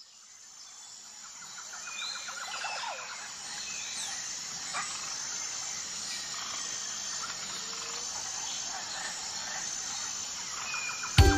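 Outdoor ambience fading in, with scattered bird chirps and faint insect calls over a steady background. Music starts abruptly just before the end.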